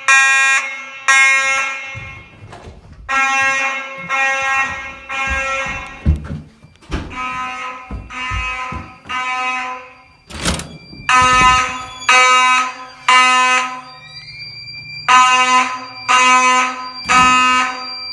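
Fire alarm sounding a buzzy tone in a repeating pattern of three beeps and a pause, the temporal-three evacuation signal.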